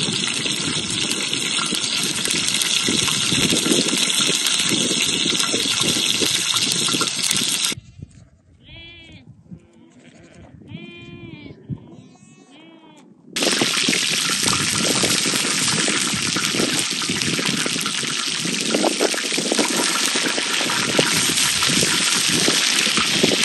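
Loud, steady rushing water that cuts off abruptly about eight seconds in. For about five seconds small livestock bleat several times. Then the rushing water cuts back in just as suddenly and runs on.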